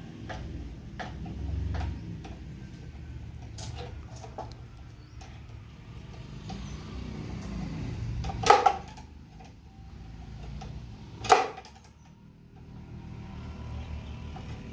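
Hand-tool work on electrical cable connections: scattered metallic clicks and two loud sharp knocks about three seconds apart, a little past halfway and near three-quarters through, over a low steady hum.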